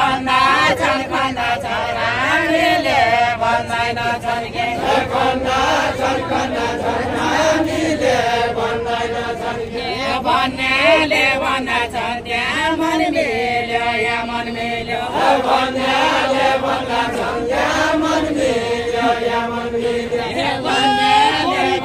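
Voices singing a Deuda folk song together, a short melodic phrase that rises and falls and is repeated over and over.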